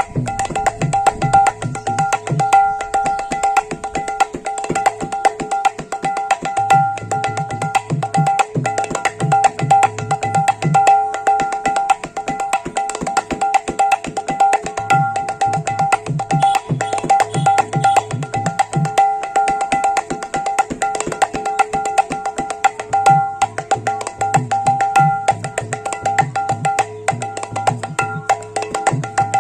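Srikhol (khol), the clay-bodied barrel drum of Bengali kirtan, played solo in a fast, dense rhythm. Quick ringing strokes on the small treble head keep a steady pitched ring. Runs of deep bass strokes on the large head come in and drop out several times.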